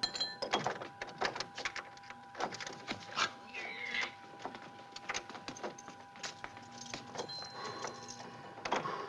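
A bunch of keys jingling and clicking in a door lock as they are tried one after another, a quick irregular run of small metallic clicks and rattles; none of the keys fits the lock.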